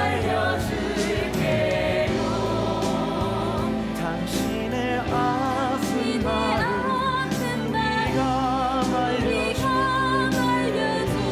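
Musical theatre cast singing together in chorus, voices wavering with vibrato on long held notes, over a live band's accompaniment.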